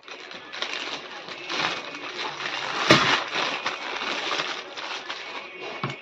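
Plastic wrapping crinkling and cardboard rustling as ceiling fan blades are handled and pulled from their box, with many small clicks and one sharp knock about three seconds in.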